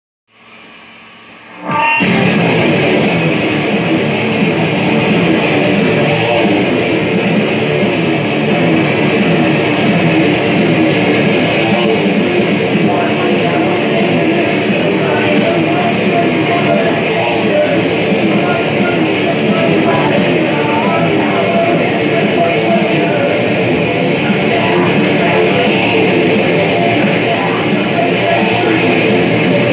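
Heavy metal riffing on a distorted electric guitar, a V-shaped guitar played through an amplifier. A short quiet lead-in, then the full loud playing comes in about two seconds in.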